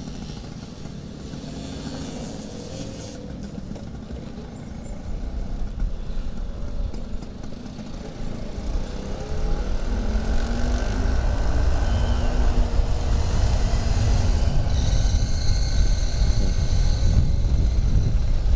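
Vintage Vespa Super 150 scooter's two-stroke engine running while riding in traffic, with wind noise on the microphone. Both grow louder about halfway through as the scooter picks up speed.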